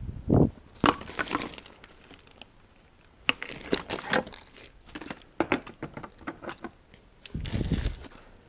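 Hands rummaging through a pile of discarded groceries: plastic bags and packaging crinkling and rustling in irregular bursts, with tin cans knocking as they are picked up and moved. A couple of dull thumps come near the start and near the end.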